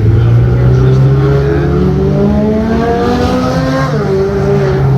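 Ferrari 296 GTB's twin-turbo V6 accelerating hard, its pitch rising steadily, then dropping sharply about four seconds in as it shifts up a gear and pulls on.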